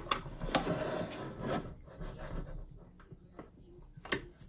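Handling noise from the aluminium workpiece being positioned by hand: a sharp click, then about a second and a half of scraping and rubbing, fading to a few light knocks near the end.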